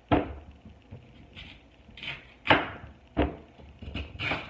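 Knife chopping through raw sweet potato, tough to cut: three sharp chops, at the start, about two and a half seconds in and just after, with several softer knocks between them.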